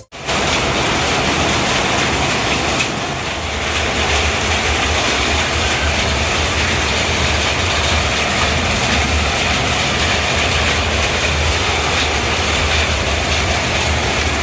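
Heavy storm rain pouring steadily, a dense even rush with a low rumble of strong wind underneath.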